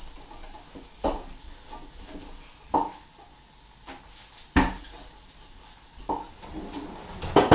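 Wooden rolling pin rolling flatbread dough out on a wooden chopping board, with about six short knocks of the pin against the board, irregularly spaced, the loudest near the end.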